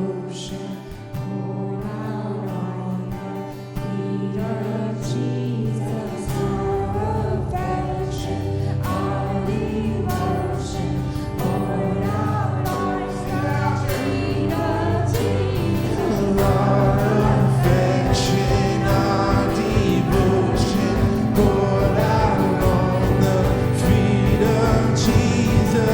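Church worship band and singers performing a worship song. The bass comes in about six seconds in, and the drums come in and the song gets louder about sixteen seconds in.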